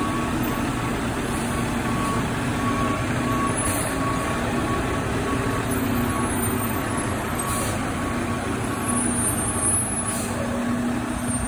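Mack front-loader garbage truck's diesel engine running as the truck manoeuvres and turns, with its backup alarm beeping repeatedly over the engine.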